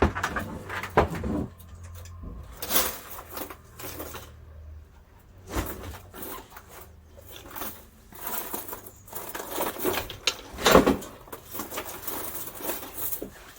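Irregular knocks and clatters as a cable stripping machine is pulled over and handled after jamming on the cable, with a low hum that dies away about five seconds in. The loudest knock comes near the end.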